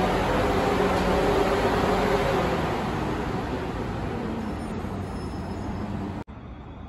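South Western Railway Class 444 Desiro electric multiple unit drawing into the platform and slowing to a stop, its traction equipment humming with steady tones that fade over the last few seconds. Near the end the sound cuts off abruptly to a quieter background.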